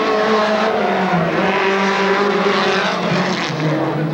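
Off-road race car engines running hard at high revs on a dirt track, the pitch wavering as the throttle changes and dipping about three seconds in before climbing again.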